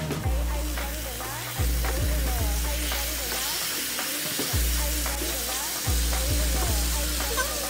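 Marinated chicken pieces sizzling in hot oil in a frying pan while they are stirred and turned with a spatula. Background music with a bass line plays under the sizzle.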